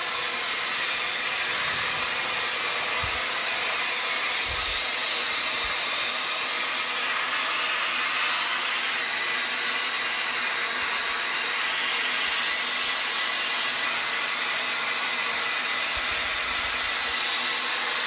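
Fanttik EROS A10 Apex hair styler running with its air-wrap curling attachment: a steady rush of blown air with a strong high hiss, unchanging throughout.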